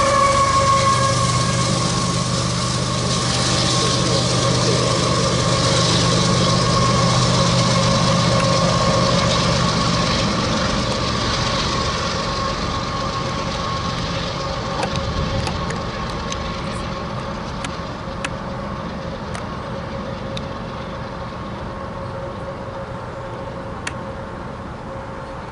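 GE ES44AC-H diesel-electric locomotive at the rear of a freight train passing close and pulling away: a low engine rumble and a steady whine that drops in pitch as it goes by, fading as the train recedes. Faint scattered clicks in the later part.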